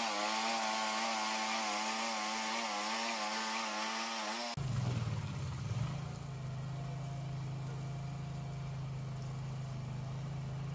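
Wood-Mizer LT15 Wide bandsaw sawmill cutting through a sugar pine log: a steady machine whine with a hiss of sawing. About four and a half seconds in it breaks off abruptly into a steadier, lower hum of the mill running.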